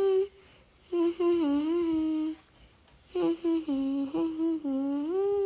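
A voice humming a tune, the notes stepping up and down, in short phrases with brief pauses between them.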